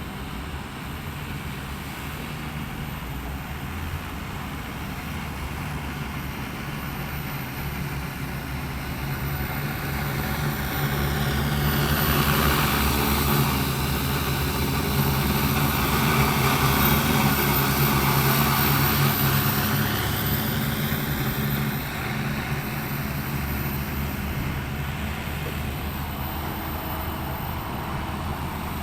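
Rotors of a 15-litre agricultural spraying drone humming in flight. The drone grows louder as it passes close by, loudest for several seconds mid-way, then draws off again.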